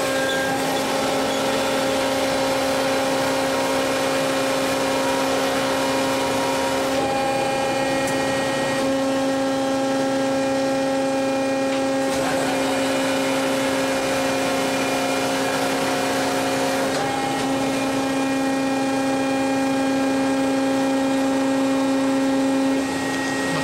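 Forklift battery changer running, a steady electric machine hum with a strong whine; its pitch shifts in steps a few times while it draws an industrial battery out of a lift truck.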